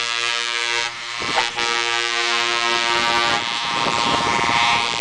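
Truck air horn blowing two long blasts, the first breaking off about a second in and the second stopping about three and a half seconds in, followed by the rumble of a lorry's engine and tyres going by.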